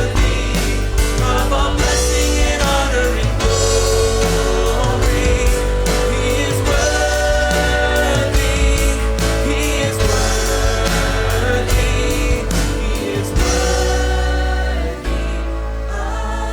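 Live worship band playing, with singers holding long notes over drums, bass and keyboards.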